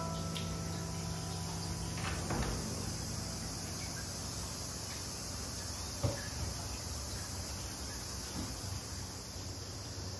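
Insects chirring steadily, with a soft knock about two seconds in and another about six seconds in.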